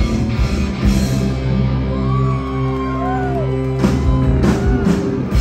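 Hard rock band playing live on electric guitars, bass and drums at the close of a song. After about a second the band holds one ringing chord, and a run of drum and cymbal hits comes near the end. Crowd whoops sound over the held chord.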